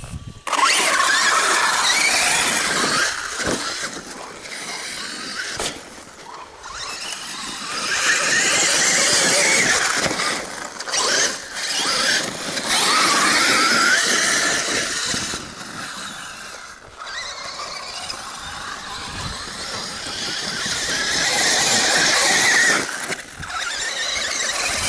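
Traxxas Summit RC truck's 2700KV brushless motor and geared drivetrain whining at high pitch. The whine rises and falls in pitch as the throttle is worked on and off over several runs.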